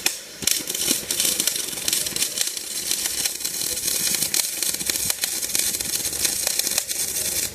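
Electric arc welding: the arc sputters and crackles steadily for about seven seconds, then cuts off suddenly near the end.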